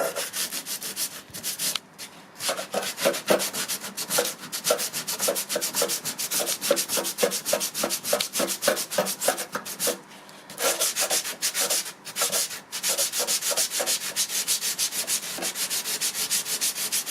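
Coarse 60-grit sandpaper rubbed by hand over hardened polyester body filler (Plastic Padding) on an MDF door, in quick back-and-forth strokes, roughly three to four a second, flattening the filler. The strokes pause briefly about two seconds in and again about ten seconds in.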